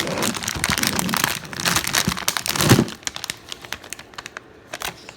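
Plastic packaging bag crinkling as it is handled and emptied, with small parts clicking and clattering out of it. The crinkling is dense for about the first three seconds, then thins to a few scattered clicks.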